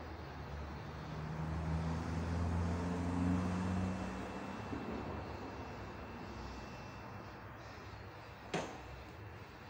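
Low engine hum of a passing vehicle, swelling over the first couple of seconds and fading away, over steady background noise. Near the end, one sharp click of the plastic lamp socket being handled on the tabletop.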